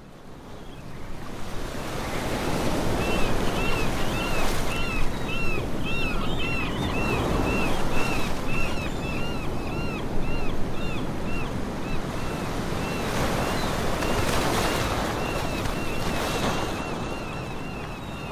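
Ocean surf washing and breaking over shoreline rocks, fading in over the first two seconds, with heavier wave crashes about four and fourteen seconds in. Through most of it there is a rapid, repeated high chirping, about two to three short notes a second.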